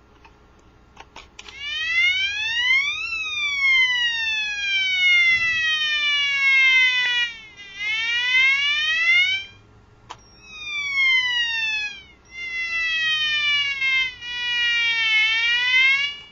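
Electronic siren sounder of a taken-apart fire alarm, playing its fire-engine siren setting, which also sounds like a police car: a loud, buzzy wail that starts about a second and a half in, sweeps up quickly and falls slowly, and repeats several times with short breaks.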